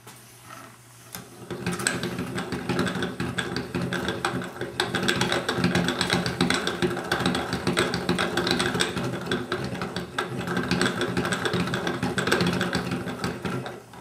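Hand-cranked wooden automaton running: its wooden cams and followers clatter rapidly and steadily as the crank is turned, driving the figure's jackhammer up and down. The clatter starts about a second and a half in and stops just before the end.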